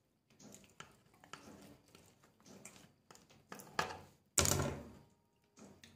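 Serrated knife sawing through soft stuffed flatbreads on a plate, a run of short irregular scrapes and taps, with one louder knock against the plate about four and a half seconds in.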